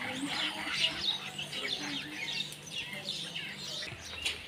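Small birds chirping and twittering, many short quick calls overlapping, with faint lower wavering calls or voices underneath.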